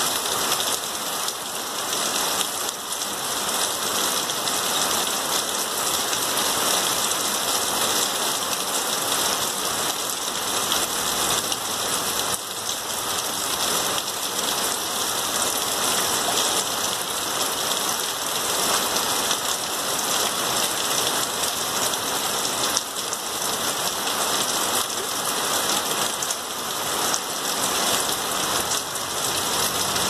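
Steady rain falling, an even hiss of countless drops that holds at the same strength throughout.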